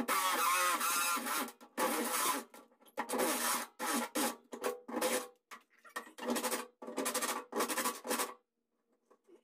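Cordless drill with a step drill bit cutting a hole through the truck's painted steel cab panel, run in about nine short bursts with a steady motor whine under the scraping of the bit, then stopping.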